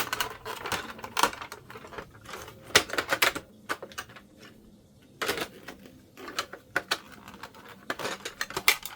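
Plastic parts of an HP OfficeJet Pro 8710 printer clicking and knocking as a broken part is pushed and worked back into place, in several bunches of sharp clicks with short pauses between them.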